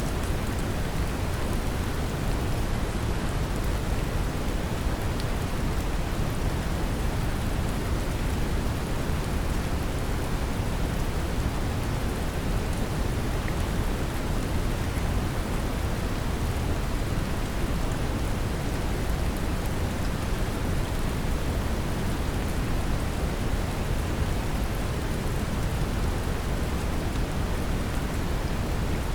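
Steady brown noise, a deep even rumbling hiss weighted toward the lows, blended with gentle rain falling, unchanging throughout.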